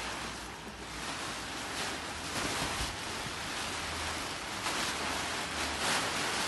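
Large plastic tarpaulins rustling and crackling as they are dragged off a frame, coming in surges with the loudest near the end, over a steady low rumble.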